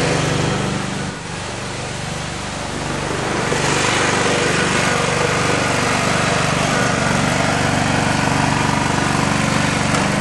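The 22 hp Briggs & Stratton ELS V-twin fitted as a replacement engine in a Craftsman GT5000 lawn tractor, running steadily as the tractor drives. It fades briefly about a second in, then grows louder from about three seconds in as the tractor comes closer.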